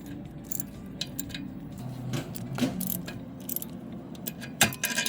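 Metal hand tools clinking and clicking against bolts and a socket, as the oil filter housing bolts are snugged up. The clicks come irregularly, with a quick cluster of sharper clicks near the end.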